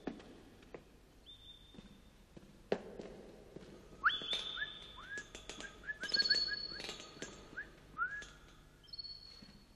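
A man whistling bird-like calls to a small caged bird: long high held notes, then a quick run of short rising chirps, with small clicks scattered through.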